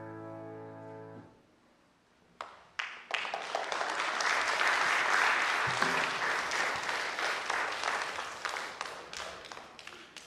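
The last held chord of the song's accompaniment ends about a second in. After a brief pause, a few scattered claps grow into audience applause that slowly fades near the end.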